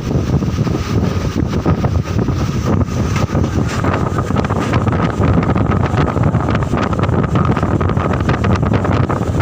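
Strong gusty wind blasting the microphone: a loud, steady rumble with constant crackling buffets.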